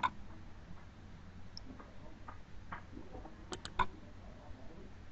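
Computer mouse button clicks: one at the start, a few faint ones, then three quick clicks about three and a half seconds in, over a low steady hum.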